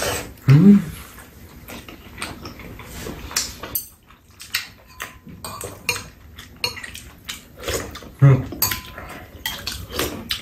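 Spoons and chopsticks clicking and scraping against bowls and a tray during a meal of noodles and rice cakes, with many short, irregular clicks. A short vocal sound about half a second in and another near eight seconds in.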